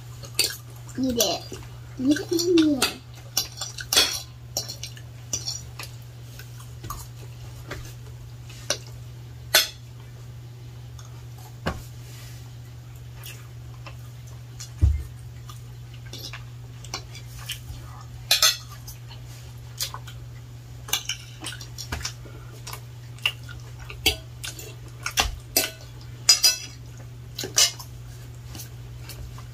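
Forks clinking and scraping against ceramic dinner plates: scattered sharp clinks, a second or so apart, over a steady low hum.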